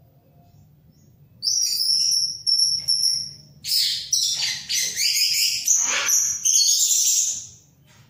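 An orange-headed thrush sings loudly. About a second and a half in it gives a phrase of high, clear notes. A second or so later comes a louder run of rapid, varied phrases that stops shortly before the end.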